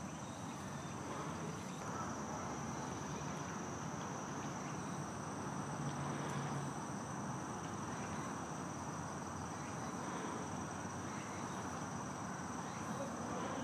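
Steady high-pitched insect song over a constant background hum of outdoor ambience.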